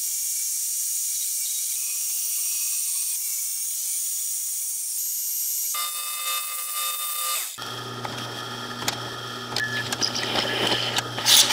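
A small portable bandsaw running and hissing as it cuts through a metal plate, cut off about six seconds in by a belt sander running briefly. A second and a half later a drill press takes over, its motor humming as a step bit scrapes through the plate.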